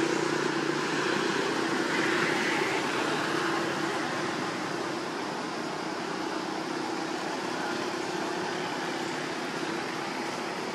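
Steady background drone with an even hiss over it and a constant low hum, a little louder in the first few seconds.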